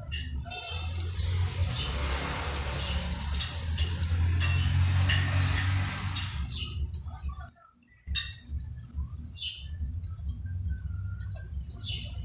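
Egg omelette sizzling in hot oil in a non-stick frying pan, with light clicks of a spatula against the pan over a steady low hum. The sound drops out briefly a little past halfway and then carries on more softly.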